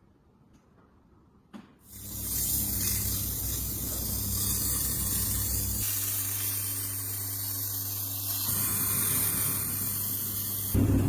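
After a short near-silence and a click, a steady spray hiss starts about two seconds in and runs over a low hum. A louder machine sound comes in just before the end.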